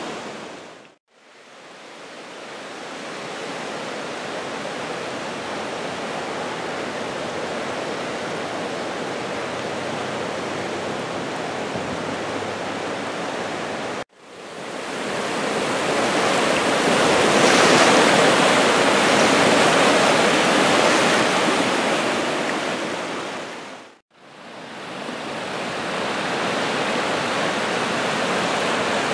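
Rushing whitewater of a small brook in full flood, swollen over its banks by snowmelt and heavy rain: a steady rushing noise. It fades out and back in twice and cuts once between shots, and is loudest in the middle stretch, over the rapids.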